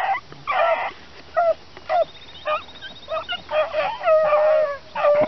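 Beagle hounds baying and yelping: several short cries, then a longer drawn-out bay about four seconds in.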